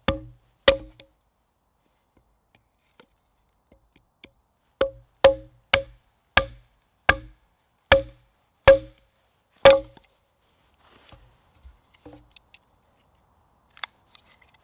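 Small axe chopping into a rhododendron branch held across a log, cutting away its rotten part: two strikes, a pause, then a run of eight strikes a little under a second apart, each a sharp knock with a short hollow ring, and a light knock near the end.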